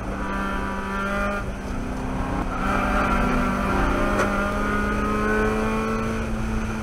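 Miata race car's four-cylinder engine heard from inside the cockpit, pulling in third gear. It eases briefly about a second and a half in, then rises steadily in pitch as the car accelerates.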